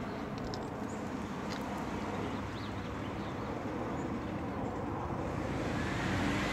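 Steady low rumble of a vehicle engine, growing a little louder near the end, with a few faint high chirps about two seconds in.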